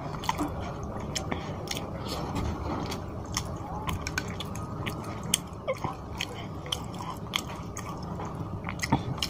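Close-miked wet chewing of a mouthful of rice and fish curry, with many short, sharp mouth clicks and smacks.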